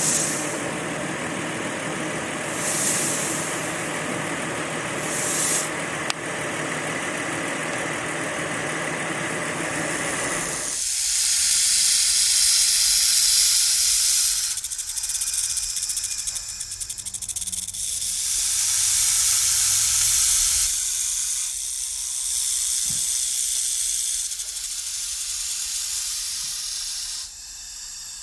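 Snake hissing in several long, breathy hisses. For roughly the first ten seconds the hiss sits over a fuller, lower noise; after that only the high hiss remains, in long stretches with short breaks.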